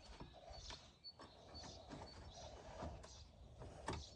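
Near silence, with faint soft rustles and a few light clicks from working loose a plastic push clip of a car's wheel-arch liner.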